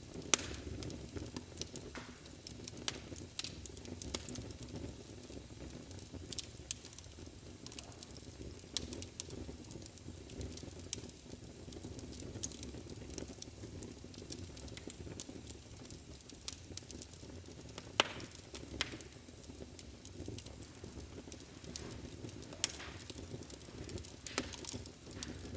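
Wood fire burning in a fireplace: a steady low rumble and hiss of flames with frequent irregular crackles and sharp pops from the burning logs, the loudest about half a second in and again about 18 seconds in.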